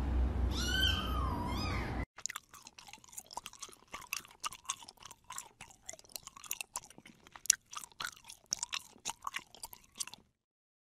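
A kitten mews with gliding, high calls over a steady low hum. About two seconds in this gives way to a kitten sucking at a feeding bottle's nipple: quick, quiet wet clicks and smacks, with a faint mew now and then.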